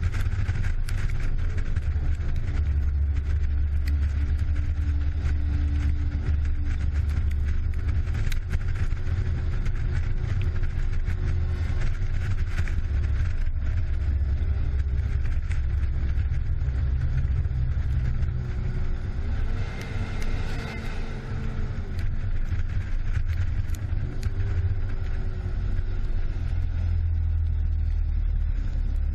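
Fire truck's diesel engine running at road speed, a heavy low rumble with wind and road noise on the hood-mounted camera. The engine note eases off and shifts pitch a few times past the middle, then pulls again.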